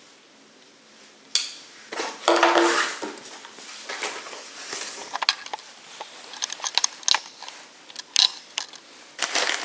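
Packaging being handled: an irregular run of clicks, knocks and rustling, with a short squeaky scrape about two seconds in.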